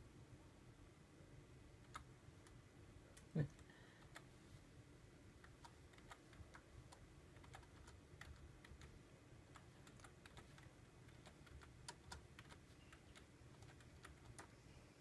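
Faint, slow and uneven keystrokes on a computer keyboard, a few scattered clicks a second. A brief low rising sound comes about three and a half seconds in and is the loudest moment.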